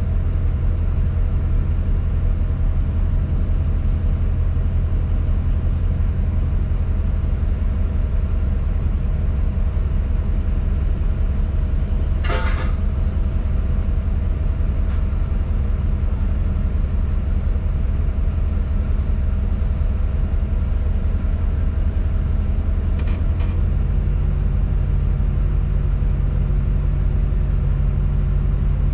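Tadano crane's diesel engine running steadily, heard from inside the operator's cab. About twelve seconds in there is a short, sharp noise, and about twenty-three seconds in the engine note changes to a deeper, heavier hum.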